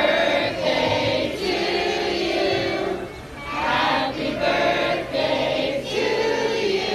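A group of voices singing together in long held phrases, with a short break about three seconds in.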